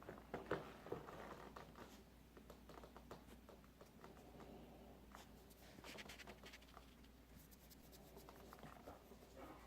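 Faint scratching and rustling of a cat moving about inside a birthday gift bag, with a few louder scuffs in the first second.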